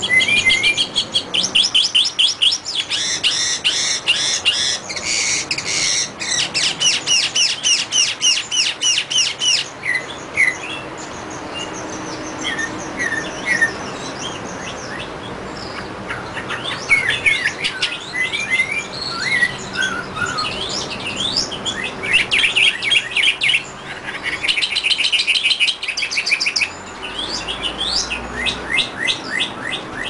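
Northern mockingbird singing: long runs of rapid repeated high notes, broken by short chirps and quick rising and falling whistles. The fast runs stop about a third of the way in and return in two bursts later on.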